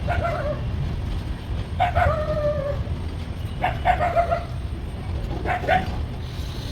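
A dog barking and whining in short high yelps, four calls a second or two apart, some sliding down in pitch, over the steady low rumble of the train.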